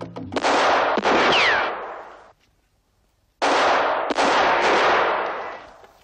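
Pistol shots fired in two pairs, each shot ringing out in a long echoing decay. A falling whine follows the second shot, and there is a short silence between the pairs.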